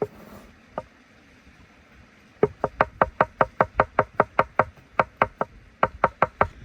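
Knife chopping on a wooden cutting board: two single knocks near the start, then quick runs of sharp wooden knocks, about six a second, with two short breaks.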